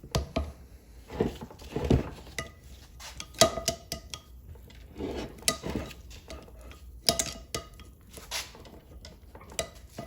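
Metal tools and parts clinking and clanking against each other in irregular knocks, some with a short ring, the loudest about a third of the way in.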